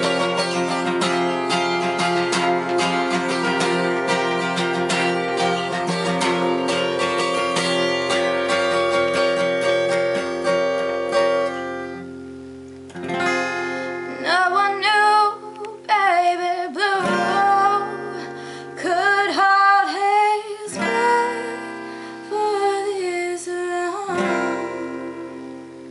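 Acoustic guitar strummed in chords for about twelve seconds, then a woman starts singing a melody over lighter guitar accompaniment.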